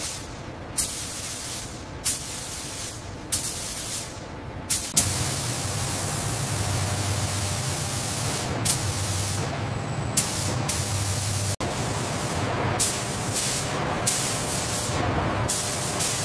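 Paint spray guns hissing in short bursts, then from about five seconds in a steadier hiss over a low industrial hum.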